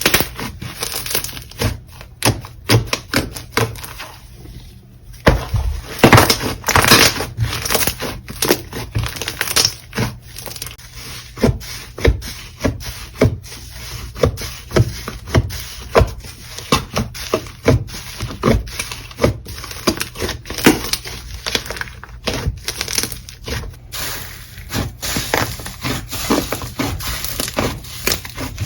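Jelly slime being squished and pressed by hand, giving a steady run of short sticky clicks and pops with a brief lull a few seconds in.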